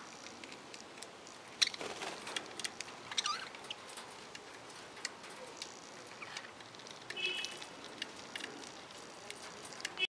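Budgerigars in an aviary giving short, scattered chirps and warbles, among many sharp ticks and clicks. The loudest of these is a single click about a second and a half in.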